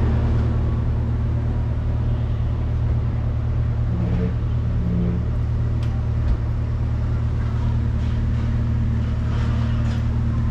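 Chery Karry van's engine idling, heard from inside the cab as a steady low hum.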